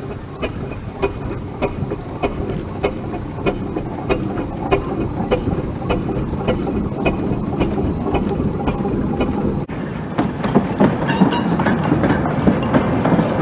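Steam traction engine running slowly, with an even mechanical beat about three times a second. About ten seconds in, this cuts off sharply to a narrow-gauge steam locomotive approaching, getting louder.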